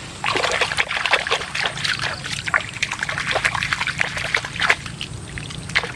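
Pond water splashing and sloshing as a hand sweeps through the shallows beside a plastic basket: a quick, uneven run of small splashes that starts just after the beginning.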